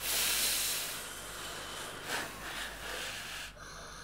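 Ramen noodles being slurped: a long airy slurp at the start, then a couple of shorter slurps around the middle.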